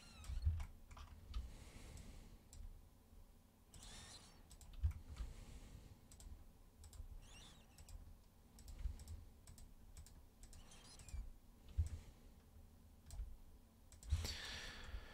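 Scattered clicks of a computer mouse and keyboard at a desk, mixed with soft low thumps.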